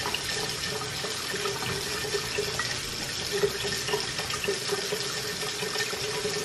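Chicken broth pouring in a steady stream from a carton into the stainless steel inner pot of an Instant Pot pressure cooker.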